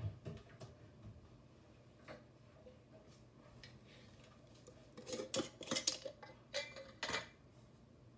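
Spoon clinking and scraping against a dish, a quick cluster of knocks and scrapes about five seconds in after a quiet stretch.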